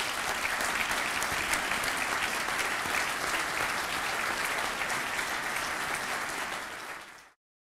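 Audience applauding steadily, fading out and cutting off shortly before the end.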